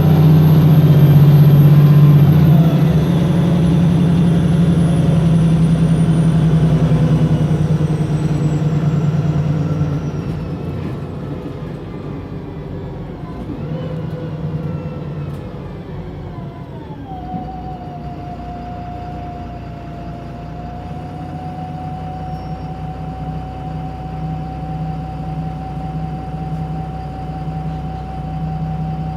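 Wright Pulsar single-deck bus's diesel engine and transmission heard from on board, working hard at first and then easing off about ten seconds in. Several whines fall in pitch as it slows, and from about two thirds of the way in one steady whine holds over a lower, even engine note.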